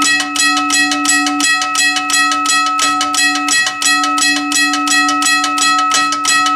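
Union Switch & Signal teardrop railroad crossing bell ringing, its hammer striking the gong in a rapid even rhythm of about five strokes a second, each stroke ringing on into the next.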